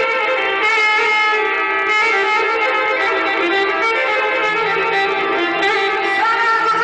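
Live Azerbaijani folk instrumental music: a garmon (button accordion) plays a sustained melody over plucked long-necked lutes such as the saz.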